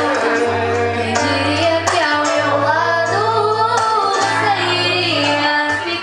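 A young female voice singing a melody over acoustic guitar accompaniment.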